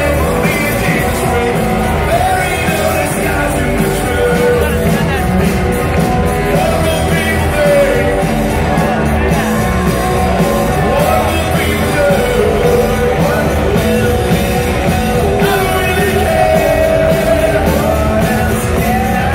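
Live rock band playing loud, with a lead vocal over drums and guitars, heard from the audience in a large hall.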